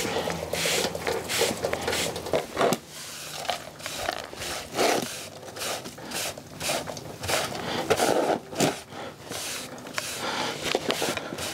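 Push broom sweeping grit and cutting debris across a concrete driveway in repeated short scraping strokes, then brushing it into a dustpan.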